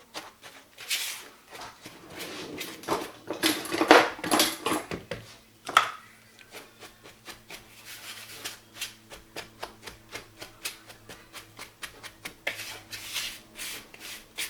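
A utensil stirring a dry mix of rice flour, cocoa and sugar in a bowl, making quick rhythmic scraping strokes that are loudest about three to five seconds in. A faint steady low hum comes in about six seconds in.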